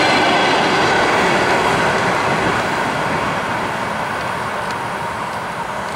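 ER9M electric multiple-unit train rolling away along the track, its steady running noise fading gradually.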